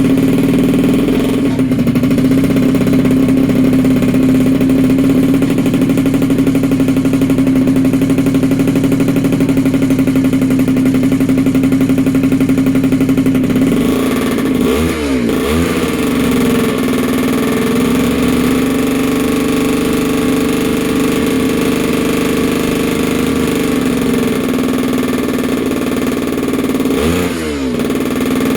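Freshly rebuilt small engine with a Polini Corsa kit running on its first start after the rebuild, holding a steady high idle. About halfway through, and again near the end, the revs briefly dip and pick back up before settling.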